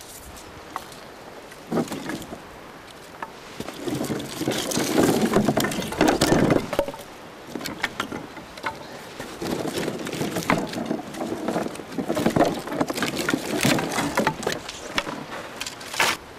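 Dry branches and sticks of firewood being lifted off a plastic sled and stacked on a woodpile: wood clattering and knocking together, with rustling of twigs, in two busy spells about four and ten seconds in.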